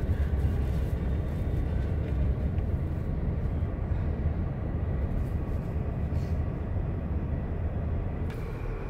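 Steady low rumble of a car, heard from inside its cabin in slow highway traffic: engine and road noise.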